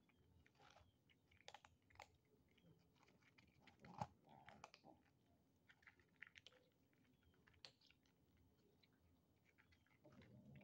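Two kittens chewing and crunching dry cat food from a shared plate: faint, irregular crunches and clicks, with one sharper click about four seconds in.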